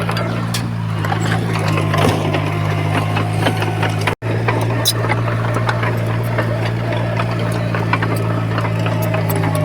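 Heavy diesel engine of earthmoving machinery running steadily, with scattered metallic clicks and clanks over it. The sound drops out for an instant about four seconds in.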